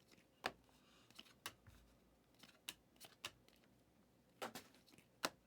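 2023 Prizm NFL football cards being flipped through one by one: about ten faint, sharp card clicks at uneven intervals.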